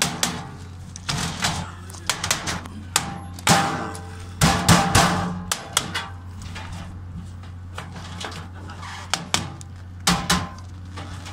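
Hammer blows on galvanized sheet-metal ductwork as a flange connector is knocked into place over a duct joint. The strikes are sharp and metallic, irregular and often in quick clusters, with a few louder ringing hits in the middle.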